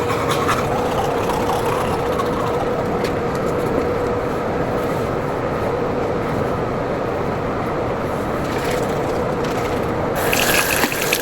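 A steady hum and hiss, then a bathroom tap turned on about ten seconds in, with water running into the sink.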